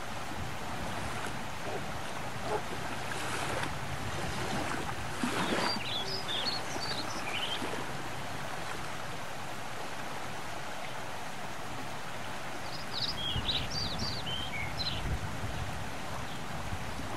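Steady rush of wind and water outdoors by the bay. Small birds chirp in two short bursts, about five seconds in and again about thirteen seconds in.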